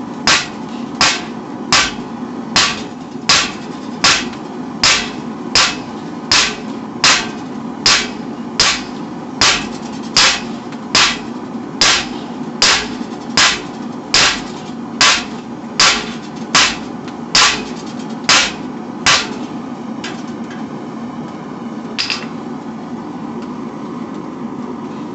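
Hand hammer striking hot 5160 spring steel on an anvil, drawing the bar out in an even rhythm of about four strikes every three seconds. The blows stop about three-quarters of the way in, and one last strike comes later. A steady roar of the running forge sits underneath.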